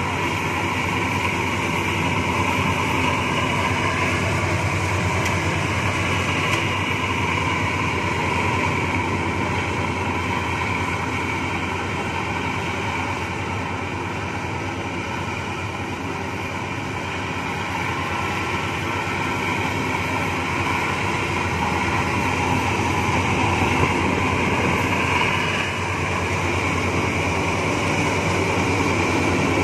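Rice combine harvester running steadily while it cuts rice, with engine and machinery noise throughout. It fades a little in the middle and grows louder near the end as the machine comes close.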